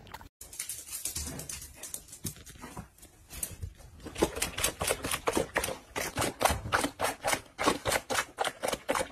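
A dog eating dry food from a metal bowl: fast crunching and clicking, about five a second, loud and steady from about four seconds in.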